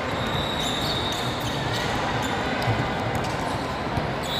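Basketball dribbled on a hardwood gym floor during a game, with a few thumps of the ball over the steady background noise of the hall.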